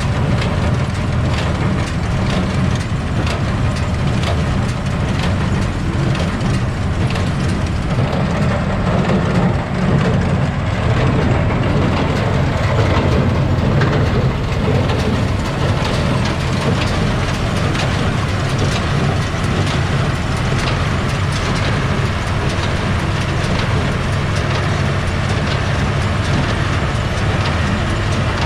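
Tractor engine running steadily under load, with clattering and knocking from the hay equipment it works.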